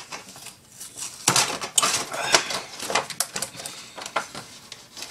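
Cardboard and plastic action-figure packaging being handled and tape worked loose. Irregular scratching, crackling and clicking starts about a second in and goes on in quick, uneven bursts.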